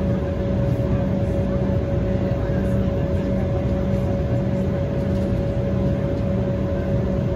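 Cabin noise inside an Embraer E190 airliner: a steady low rumble of its turbofan engines and rushing air, with one steady mid-pitched tone over it.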